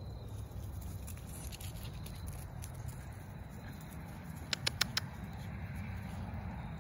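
Rat terrier puppies giving four tiny high squeaks in quick succession about halfway through, over a low steady rumble.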